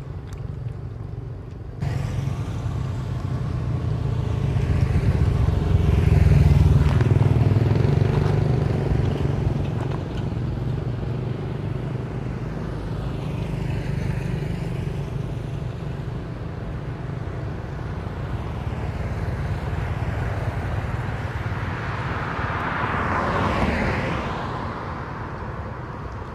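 Road traffic passing: cars and motorbikes going by over a steady low rumble, louder as one passes about six seconds in and again near the end.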